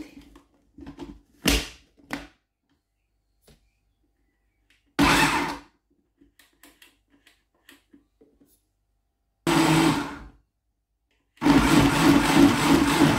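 Kenwood countertop blender pulsed in short bursts of about a second, with a few faint clicks between them, then running steadily from about eleven seconds in. It is puréeing red bell pepper, scotch bonnet pepper and onion with water.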